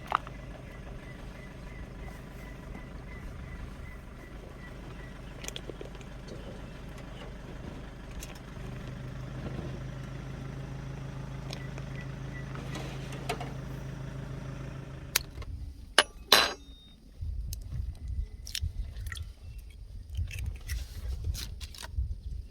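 A car engine running with a steady low hum. About fifteen seconds in it gives way, after a few sharp clicks, to an uneven low rumble with scattered clicks.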